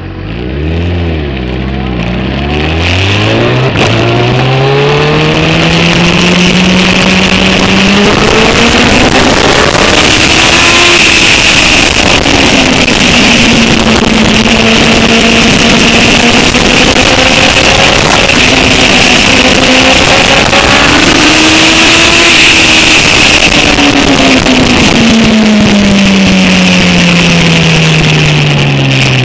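Sport motorcycle engine pulling away and rising in pitch over the first several seconds, then running at speed with a loud wind rush on the microphone. Its note falls away near the end as the bike slows.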